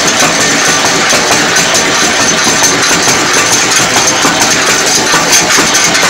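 Naswar tablet-making machine running: its electric motor drives the mixer in the hopper with a loud, steady mechanical churning and a thin high whine over it.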